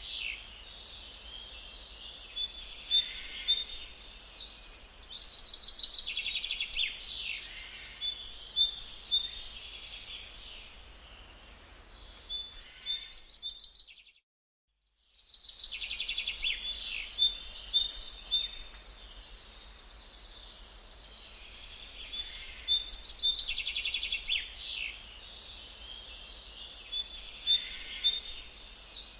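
Birds chirping and trilling in quick repeated high calls. The sound cuts out completely for about a second halfway through, then starts again.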